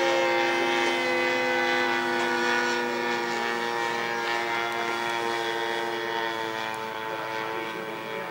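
Radio-controlled scale model Cessna flying overhead, its engine and propeller giving a steady droning tone. The tone drops slightly in pitch right at the start, then holds steady and slowly fades.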